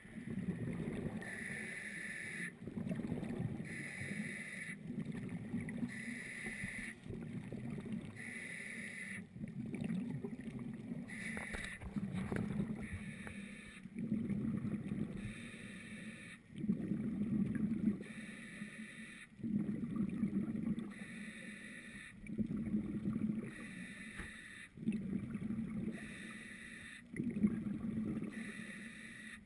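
Scuba diver breathing through a regulator, heard through the camera's underwater housing: each inhale draws a hiss from the regulator, and each exhale releases a rumble of bubbles. The breaths repeat in a steady rhythm, roughly one every two to three seconds.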